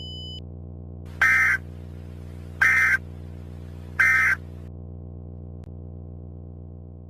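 Emergency Alert System end-of-message data bursts: three short buzzing digital bursts about 1.4 s apart, marking the end of the alert message. A high steady tone cuts off just before them, and a steady low hum runs underneath and fades out near the end.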